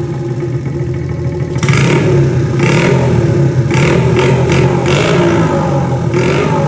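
Custom Honda Monkey's small four-stroke single running through a Pretty Racing CB400F-style exhaust. It runs steadily, then from about a second and a half in the throttle is blipped several times in short bursts.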